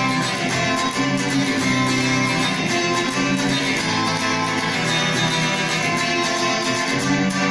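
Instrumental music led by strummed and plucked guitar, a steady accompaniment without singing.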